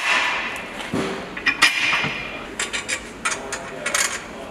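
Metal knocks and clinks as a red metal bed plate is held and shifted against the underside of a vehicle, a few in the first two seconds and a quicker run of sharp clicks in the second half, each ringing briefly in a large workshop.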